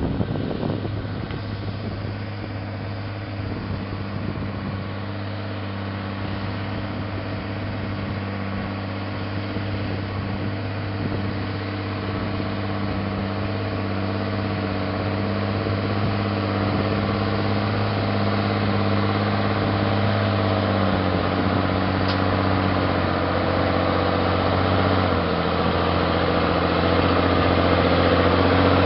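Mercedes-Benz 1621 dump truck's diesel engine running steadily as it pulls up a muddy dirt track, growing louder as it comes closer. The engine note drops to a lower pitch about three-quarters of the way through.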